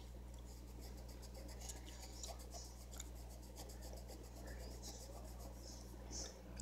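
Faint scratching of a pencil colouring on a coloring-book page in short strokes, over a steady low hum.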